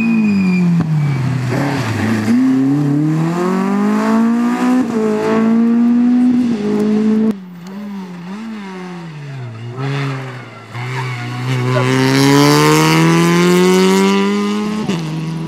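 Two rally cars in turn: a Peugeot 205 rally car's engine drops in revs as it slows, then revs rise hard through two gear changes as it accelerates away. After a sudden change, an Opel Adam rally car's engine wavers at lower revs, then climbs steadily in pitch under full acceleration, loudest near the end.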